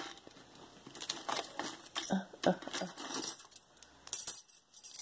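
Metal knot bangle bracelets clinking against one another as they are handled: a scatter of light metallic clicks and jingles, the loudest near the end.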